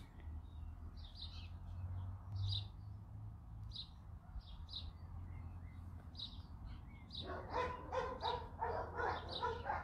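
Birds chirping at intervals. From about seven seconds in, a dog barks faintly in a quick run, about four barks a second.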